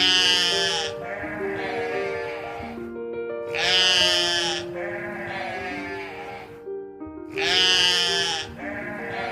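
A sheep bleating three times, about every three and a half seconds, each long wavering bleat trailing off more quietly, over background music.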